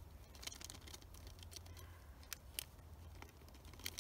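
Faint crinkling and a few scattered light clicks as a small packet of Tannerite's gray powder is worked and emptied over the mouth of a glass mason jar.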